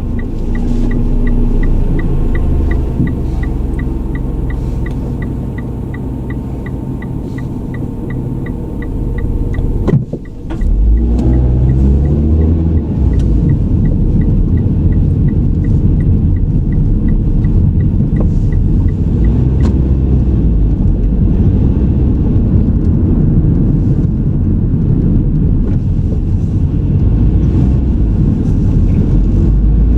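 Car cabin road and engine rumble while driving, with a regular ticking, like a turn signal, for the first twenty seconds or so. About ten seconds in the sound dips briefly, then the engine note climbs and the rumble grows louder as the car speeds up.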